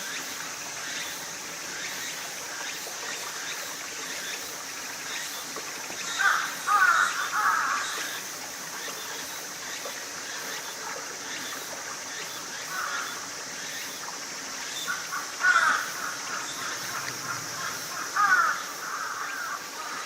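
Harsh bird calls in short bursts, a cluster about six to eight seconds in and again briefly around thirteen, fifteen and eighteen seconds, over a steady high hiss.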